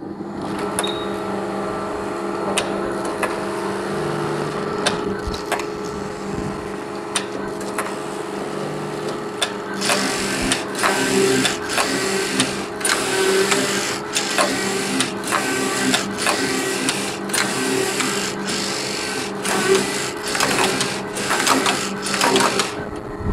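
Computerized flat knitting machine for shoe uppers running, its carriage traversing the needle beds with a steady mechanical hum. About ten seconds in, a regular clatter joins it at roughly three strokes every two seconds, and it stops shortly before the end.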